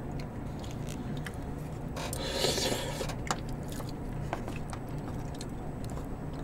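Eating at a table: spoons and chopsticks clicking and scraping in plastic takeaway soup tubs, with a brief louder scrape about two and a half seconds in, over a low steady hum.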